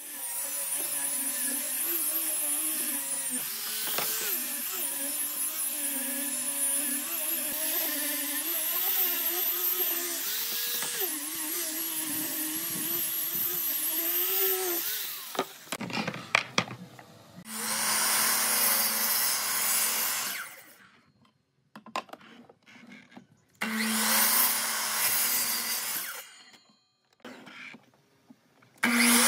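A small angle grinder fitted with a sanding disc sands a pine board, its motor whine wavering up and down as it is pressed and moved over the wood; it stops about 15 seconds in. After a few clicks, a sliding miter saw runs in two short bursts to cut a board, with quiet gaps between them.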